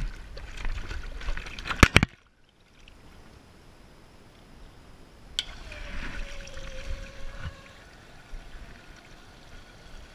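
Dog lapping and splashing water in a plastic tub, ending in two sharp knocks about two seconds in. About five seconds in, the push-button drinking fountain clicks on, and water runs with a hiss and a faint steady tone for a couple of seconds.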